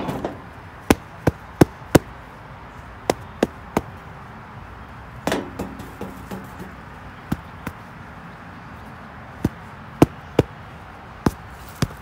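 Dirty foam air-filter element being knocked against the lawn tractor to shake the dust out: about fifteen sharp knocks, coming in short irregular groups of two to four.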